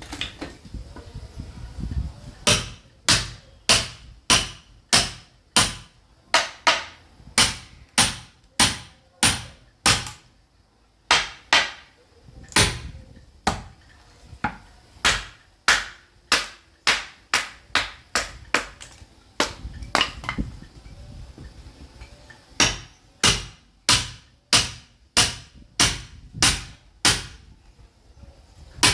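Sledgehammer striking a steel chisel to split caviúna hardwood firewood: a long run of sharp blows, about one or a little more per second, pausing briefly twice.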